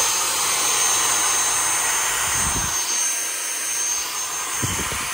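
Dyson V6 cordless handheld vacuum running steadily on a 21.6 V replacement battery: a steady rush of air with a thin high whine above it.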